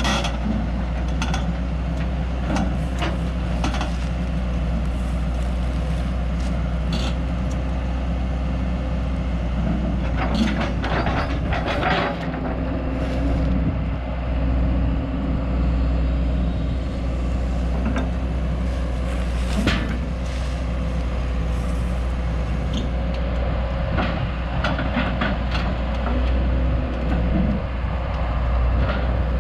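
A vehicle engine running steadily, with intermittent clanks and rattles.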